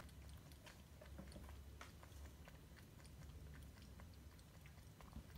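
Adult cat eating from a plastic tub: faint, irregular chewing clicks.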